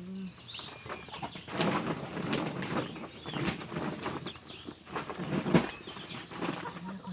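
A run of rustling and clattering noises, the loudest about five and a half seconds in, with birds chirping now and then.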